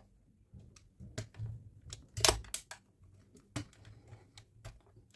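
A screwdriver backs a screw out of a Dyson V15 battery's plastic case: scattered small clicks and scrapes, the sharpest click a little over two seconds in.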